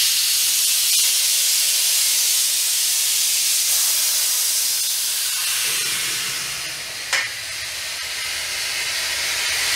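Steady hiss of compressed air venting from the Bert air-powered bumper jack's cylinder as its lever is put down and the jack lowers, with a single click about seven seconds in. The hiss cuts off suddenly.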